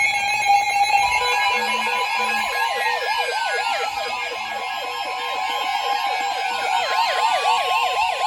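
NOAA weather radio receivers sounding their alert for a severe thunderstorm warning. A steady high attention tone starts about a second in. About two and a half seconds in, a rapid, repeating siren-like warble joins it, along with a few slow falling sweeps. This is the alert that comes before the spoken warning message.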